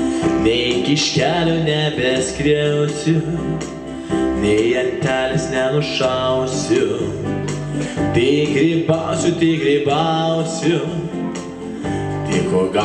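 A man singing a song with instrumental accompaniment.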